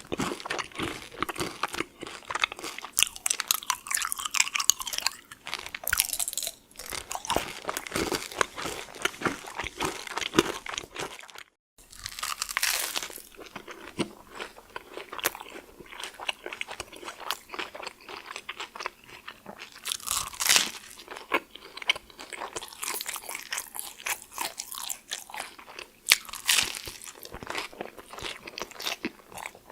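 Close-up chewing: M&Ms crunched between the teeth, their hard candy shells cracking. After a brief silence about twelve seconds in, bites and chewing of a club sandwich, with crunchy strokes from toasted bread.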